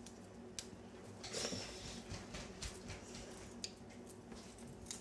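Faint handling sounds of a folding camping utensil multi-tool: a few sharp metallic clicks as its spoon, fork and knife pieces are swung open and shut, with a soft rustle about a second and a half in.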